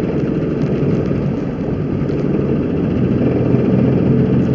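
Loud, steady drivetrain growling heard inside the cabin of a 2003 Jeep Grand Cherokee driving in four-wheel drive, growing a little louder near the end. It is the kind of growl most people would take for a bad wheel bearing.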